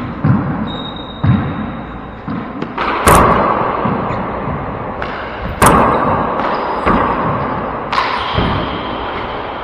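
Handball rally in an enclosed four-wall court: the rubber handball is struck by hand and smacks off the walls, three loud cracks about two and a half seconds apart that ring on in the court's echo. Softer footfalls and shoe scuffs on the wooden floor come between them.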